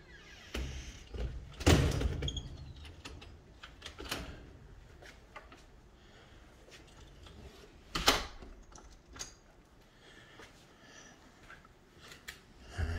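A door knocking and clunking: two loud knocks, about two seconds in and again about eight seconds in, with fainter knocks in between.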